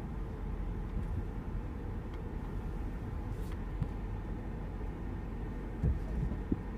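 Steady low rumble of a 2014 Mercedes-Benz SL550 rolling slowly, heard from inside the cabin: engine and tyre noise, with a soft thump about six seconds in.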